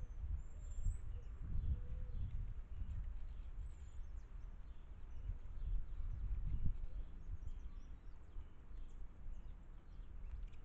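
Outdoor ambience dominated by a steady low rumble, with faint scattered bird chirps and a few high, thin whistled bird notes, most of them in the first few seconds.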